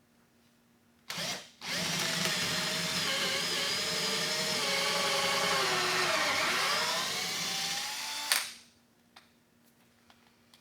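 Power drill boring a pilot hole into a wooden wall stud: a short blip of the motor about a second in, then a steady run of about six seconds. Its pitch sags under load around the middle and picks up again before it stops with a click; the bit feels firm going in, a sign it is biting into the stud.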